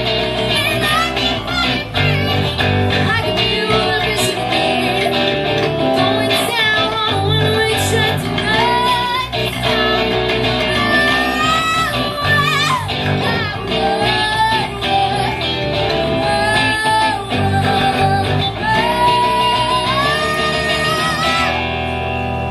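Live rock duo playing an original song on electric guitar and electric bass, with a woman singing and bending melodic lines. The song ends about 21 seconds in on a held final chord ringing out.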